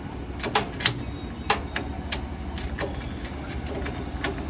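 A key being put into and turned in the combination lock of a steel almirah: a handful of sharp, irregular metallic clicks over a steady low hum.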